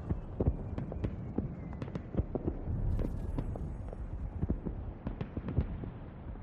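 A rapid, irregular series of knocks and thuds over a low rumble.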